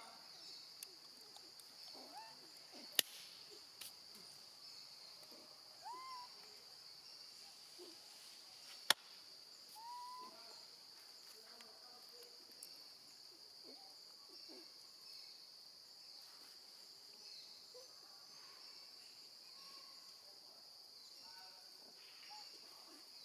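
Baby monkey giving a few faint, arching calls for its mother, mostly around six and ten seconds in, over a steady high-pitched insect drone. Two sharp clicks stand out, about three and nine seconds in.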